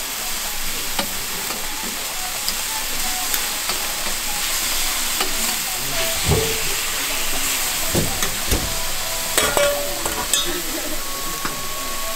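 Beef skirt steak sizzling on a hot griddle, a steady frying hiss, with a few knocks and clinks of cooking tools in the second half.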